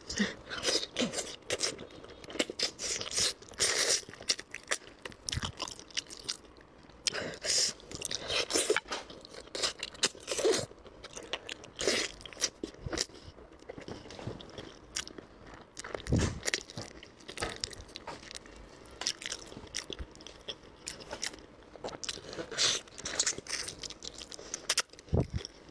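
A person biting and chewing braised pork close to the microphone: many irregular crunches and mouth clicks.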